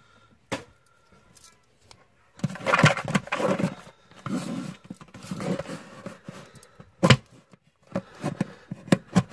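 Fingers prying and scraping at a cardboard box whose flap is glued shut: a few seconds of dense rubbing and scraping of cardboard, with sharp knocks less than a second in and at about seven seconds, and several quick taps near the end.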